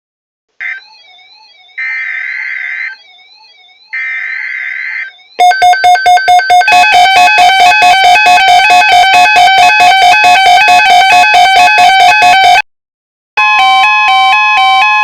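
Emergency Alert System lead-in for a tornado watch: three short bursts of warbling digital header data, about a second apart, then a loud, fast-pulsing alarm tone for about seven seconds. After a brief gap, a second, steadier alert tone starts near the end.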